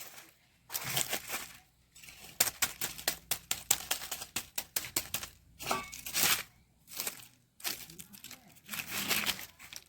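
Crinkling and tearing of crisp material being handled, with a dense run of sharp crackles about two and a half seconds in.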